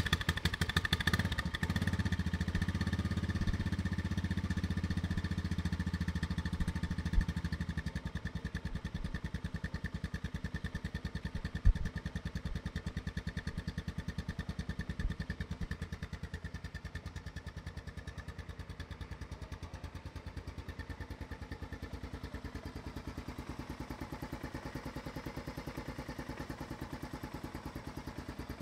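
Honda Recon 250 ATV's single-cylinder four-stroke engine idling just after being started. It runs louder for the first several seconds, then settles into a steady, even idle. One sharp click about twelve seconds in.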